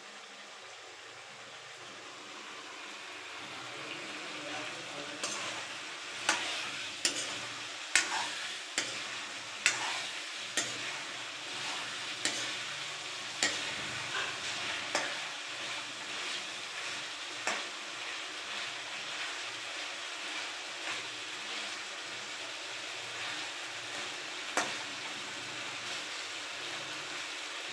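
Chicken curry sizzling and frying in a metal kadai over a gas flame. The sizzle builds over the first few seconds as the flame is turned up, and a metal spoon stirring the chicken clicks and scrapes against the pan at irregular intervals.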